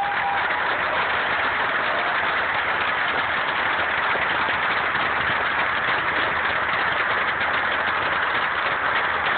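Large crowd applauding steadily, a dense, even clatter of many hands clapping.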